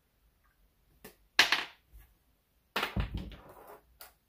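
Chainsaw parts being handled and set down on a wooden workbench: a sharp knock, then a second or so of knocking and rattling, and a last click near the end.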